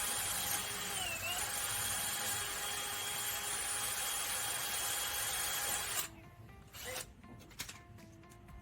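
A small handheld power tool whirring steadily with a whine that dips briefly about a second in, then stopping about six seconds in; a few clicks and knocks follow.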